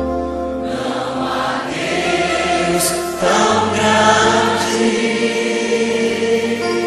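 Gospel worship song: choral singing over sustained keyboard chords and bass.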